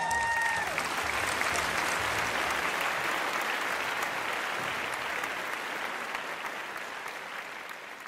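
Audience applauding at a school musical's curtain call, the clapping gradually fading away. The last held notes of the finale music die out in the first second.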